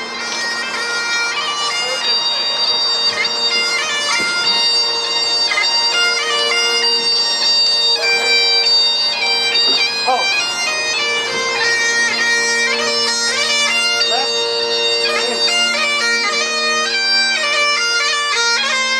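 Bagpipes playing a tune, the chanter's melody shifting note to note over steady, unbroken drones.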